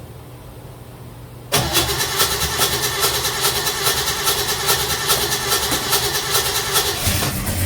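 A 1956 Chevy Bel Air's 307 V8 starting cold: the engine catches suddenly about a second and a half in, then runs with a fast, even pulsing.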